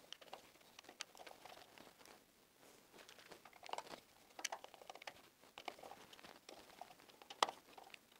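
Faint scattered clicks and scrapes of a screwdriver working on flush-mounted switch inserts in a wall box, plastic and metal parts rubbing and snapping, with the sharpest click near the end.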